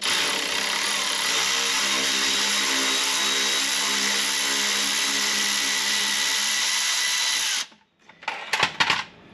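Milwaukee cordless electric ratchet spinning out a tight hex bolt on a driveshaft's inner CV joint flange. The motor runs steadily for about seven and a half seconds, then stops, followed by a few light metallic clicks.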